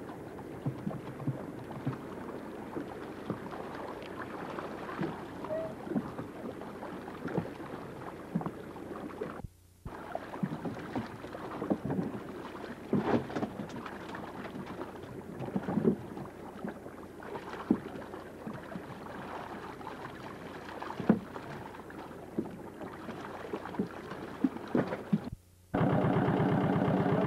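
A cod trap net being hauled by hand over the side of an open wooden boat: water sloshing and splashing, with irregular knocks of net, rope and gear against the boat. The sound cuts out briefly twice. Near the end a boat engine starts running steadily at idle, louder than the hauling.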